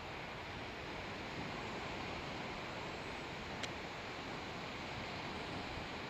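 Steady, even rushing noise of seaside wind and surf, with a faint click about three and a half seconds in.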